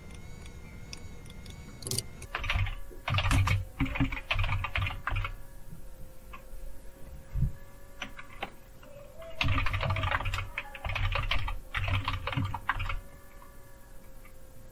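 Typing on a computer keyboard: two bursts of quick keystrokes, about two seconds in and again about nine and a half seconds in.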